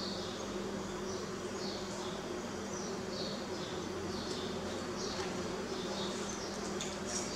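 A steady low buzzing hum, with short high chirps that fall in pitch, about one or two a second.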